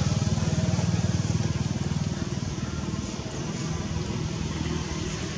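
An engine running steadily with a low, evenly pulsing rumble, easing a little about three seconds in.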